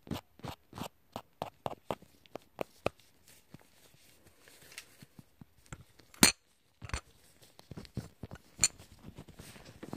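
A run of sharp, light clicks and clinks close to the microphone, about three a second at first, thinning out in the middle. One much louder click comes a little past six seconds, followed by a brief total dropout of sound.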